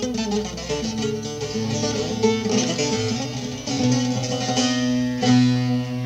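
Bağlama (Turkish long-necked saz lute) played solo with a plectrum. A quick run of plucked melody notes over ringing lower strings gives way to longer, sustained notes in the second half.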